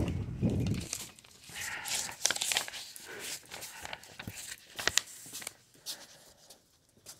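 Crinkling and rustling handling noises with many scattered light clicks and knocks, dying away near the end.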